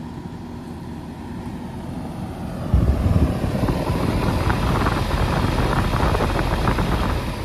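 Outdoor condensing unit of a 1990s EMI ductless mini split running, its top-discharge condenser fan and Bristol reciprocating compressor giving a steady whirring hum. About three seconds in it grows louder and rushier, heard close over the fan grille in the blast of discharge air, and it eases again near the end.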